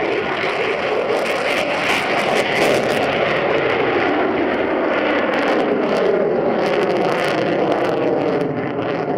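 F-22 Raptor's twin Pratt & Whitney F119 turbofan jet engines, loud and steady with a ragged crackle, as the jet passes low and pulls up into a climb.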